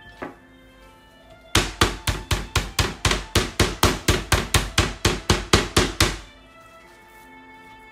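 Meat mallet pounding raw pork cutlets on a wooden cutting board to tenderise and flatten them: a fast, even run of about twenty blows, about five a second, starting about a second and a half in and stopping a little after six seconds, over background music.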